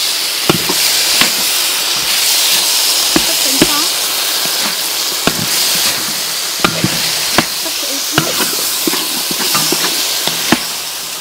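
Shallots, lemongrass and chili paste sizzling in a large metal wok while a metal spatula stirs them, knocking and scraping against the pan about once a second.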